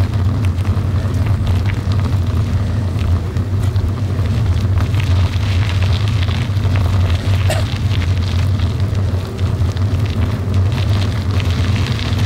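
Steady low rumble of wind buffeting the microphone while travelling, with a light crackle of tyres rolling over a loose gravel road.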